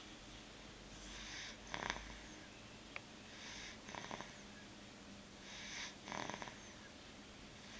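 Snoring of a sleeper: three breaths about two seconds apart, each a breathy hiss followed by a short rattling snort.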